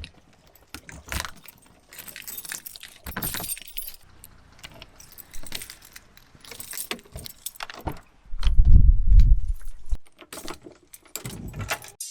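Keys jangling in scattered bursts, with handling clicks and a loud low rumble lasting about a second and a half around eight seconds in.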